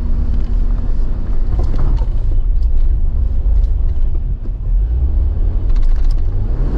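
Off-road Jeep's engine running low and loud as it works at climbing a slick, muddy rock, with scattered clicks and knocks.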